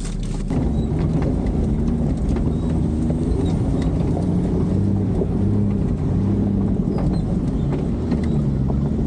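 Off-road 4x4's engine pulling at low speed up a rough dirt track, heard from inside the cabin; its pitch rises and falls, with scattered small knocks and rattles throughout.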